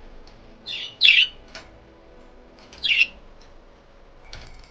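Pet budgies squawking and chirping: a few short, harsh calls, the loudest about a second in and another near the three-second mark.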